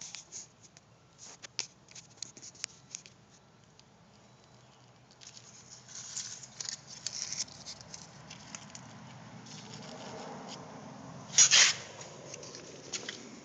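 Handling noise from fingers on a phone held close to the microphone: scattered clicks and taps, then denser scratching and rubbing. A louder rustle comes about eleven seconds in.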